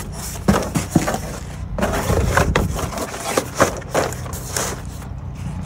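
Cardboard sheets rustling and scraping against the wooden sides of a raised garden bed as they are laid in, in irregular bursts.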